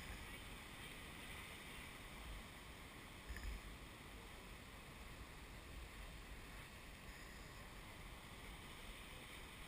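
Steady rushing of heavy ocean surf, with wind buffeting the microphone in low gusts, most strongly about three and a half seconds in.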